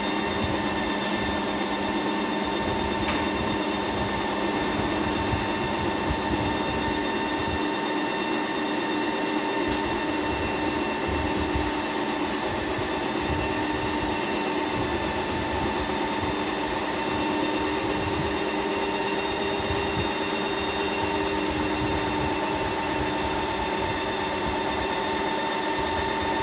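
Ninja Creami ice cream maker starting up and running its Ice Cream program, the motor driving the paddle down through a frozen tub of base. It makes a steady motor whine with several held tones over a grinding rumble.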